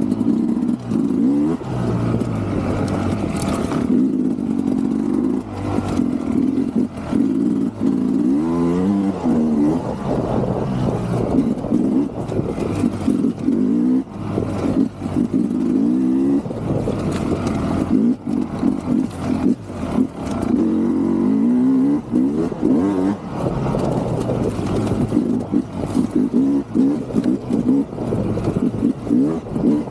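2024 Sherco 300 SE-R Factory two-stroke dirt bike engine heard from on board while ridden hard, revving up and down again and again as the throttle is worked, with brief drops and knocks between pulls.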